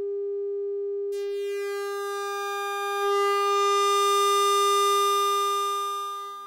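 A steady electronic tone on one held note, pure and sine-like at first; about a second in it turns bright and buzzy as a full ladder of overtones comes in. It swells slightly midway and fades out near the end.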